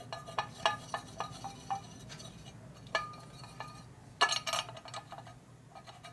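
Hand file worked against a metal part: scattered sharp metallic clicks and clinks, each with a short ring, and a denser, louder burst about four seconds in.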